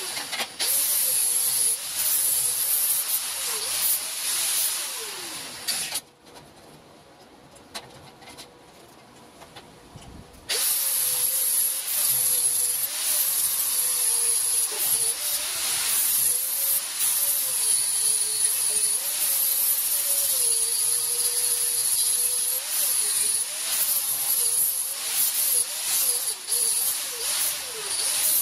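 Angle grinder grinding a steel tube frame: a high whine over a steady hiss, its pitch wavering as the disc is pressed onto the metal. The sound breaks off for about four seconds some six seconds in, then the grinder runs again.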